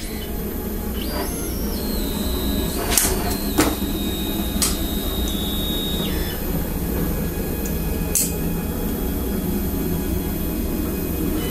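Onefinity CNC router's stepper motors jogging the axes: the router is raised and the gantry moves, a whine that glides up and holds in pitch over a low steady hum. A few sharp clicks and knocks from the dust shoe and wrench being handled.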